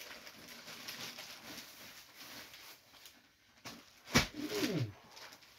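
Plastic packaging rustling and crinkling as a bag is opened and its contents handled, then a sharp click about four seconds in, the loudest sound, followed by a short pitched sound that rises slightly and then falls.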